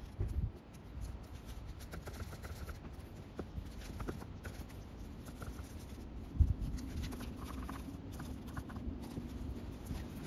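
A rag-wrapped screwdriver rubbing and scraping inside the plastic fan housing of a STIHL FS250 brush cutter, with many small clicks and taps as the tool and housing are handled, and a heavier knock about six seconds in.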